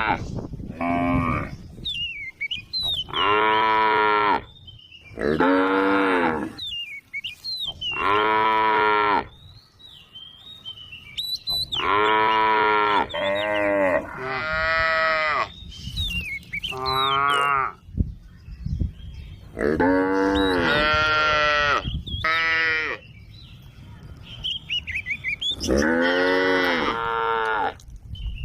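Cows mooing again and again, about a dozen calls of roughly a second each, some following close on one another. Small birds chirp faintly in the gaps.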